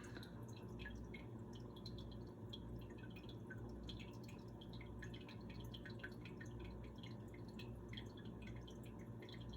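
Quiet room tone: a steady low hum with many faint, irregular small ticks scattered throughout.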